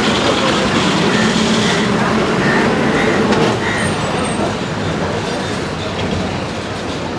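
City bus engine running as the bus passes close by, its noise easing off as it moves away, while a WBTC tram comes up along the street rails amid steady street traffic.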